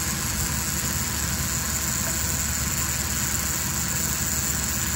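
Handheld rotary grinder running steadily, its burr grinding the ports of a Homelite Super XL-130 chainsaw cylinder.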